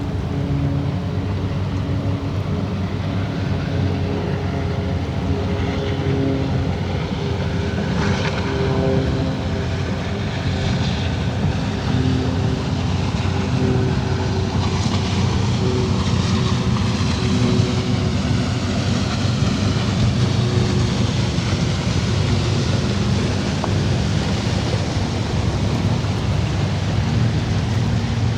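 Boat engine running steadily, a low droning hum with several steady tones under a broad wash of noise, growing slightly louder in the second half.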